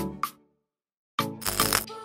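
Background music with a steady beat, which cuts out completely for under a second in the middle and then comes back.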